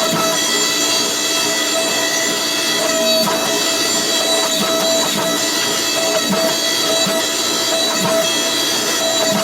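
A power tool running steadily in a blacksmith's shop, a constant whine over a rough grinding noise, as when steel is being ground.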